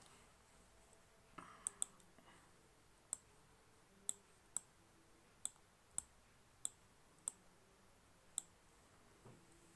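About ten sharp computer-mouse clicks, irregularly spaced about half a second to a second apart, as the on-screen document is paged on to the next question.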